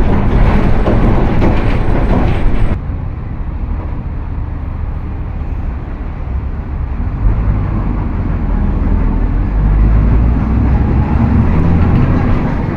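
Volkswagen 17.230 EOD city bus on the move: drivetrain and road rumble with the differential howling. About three seconds in, the higher hiss cuts off suddenly and a lower rumble remains, which builds again with a steady low hum.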